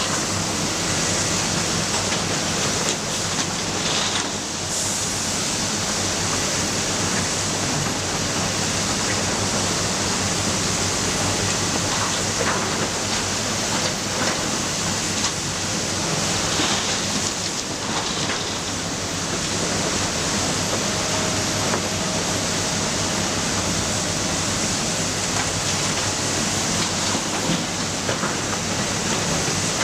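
Matador ME315 excavator's diesel engine running steadily under a dense, even hiss, with a few faint knocks.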